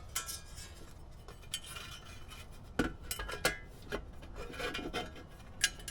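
Rubbing and scraping of a wire and parts being handled and fed through the heater's intake fitting, with a few short knocks and clicks, the loudest about three seconds in.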